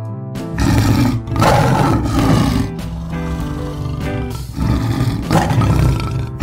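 Tiger growling and roaring in two long bouts, the first starting about half a second in and the second about four and a half seconds in, over background music with held notes.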